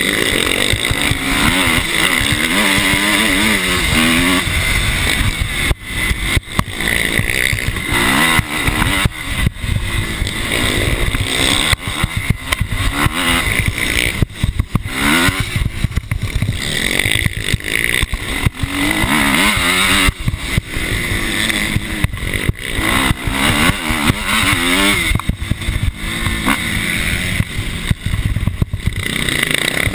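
Motocross bike engine revving hard, climbing and dropping in pitch again and again as the rider accelerates and shifts around the track, heard from a camera mounted on the bike's handlebars, with frequent knocks and rattles as the bike jolts over the rough dirt.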